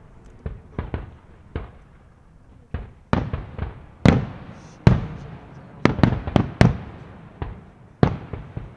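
Aerial firework shells exploding in a display, each bang trailing off in echo. A few lighter reports come in the first second and a half. From about three seconds in, louder bangs follow one another quickly.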